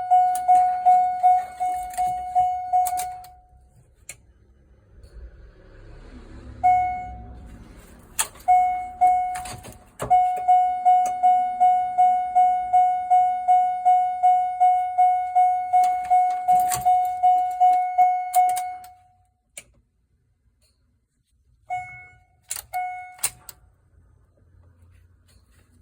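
C5 Corvette Z06's electronic warning chime sounding in quick repeated tones, about two and a half a second, in several runs with pauses between them. A few sharp clicks come between the runs, in a car that clicks and will not start.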